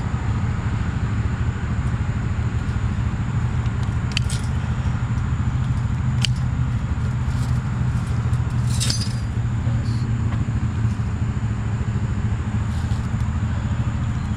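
An engine running steadily, with a few short light metallic clinks about four, six and nine seconds in.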